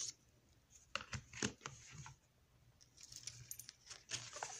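Hands handling a cardboard oracle-card box and its paper guidebook on a cloth-covered table: a few light taps and clicks, then a stretch of paper and cardboard rustling near the end.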